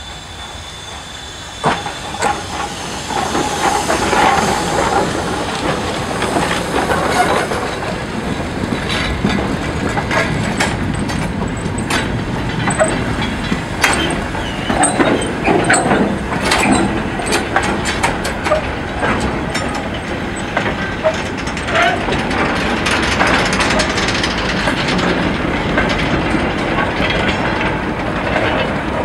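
Loaded steel mineral wagons of a coal train rolling past close by behind a steam tank locomotive, wheels clacking over the rail joints with knocks and clanks. Steam hisses from the locomotive at the start. The rail noise rises sharply about two seconds in.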